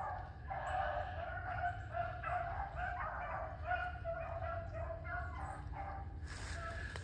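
Pack of rabbit hounds giving tongue in the brush, a run of short, repeated baying cries about two or three a second, the sound of the dogs trailing a rabbit. A rushing noise comes in near the end.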